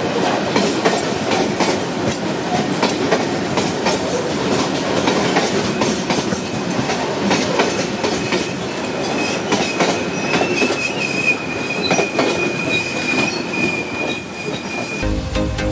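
Freight train rolling past, its wagon wheels clattering over the rail joints with a steady rumble. About halfway through a steady high wheel squeal joins in. Music starts just before the end.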